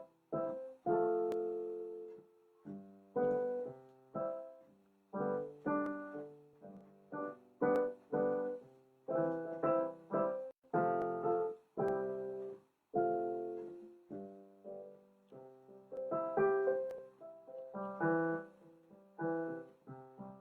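Piano music: chords and short phrases struck and left to fade, with brief pauses between them.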